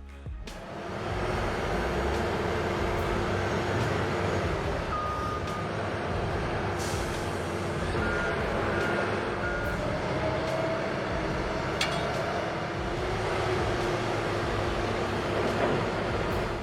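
Heavy truck engine running steadily, with a short beep about five seconds in and three more short beeps a few seconds later.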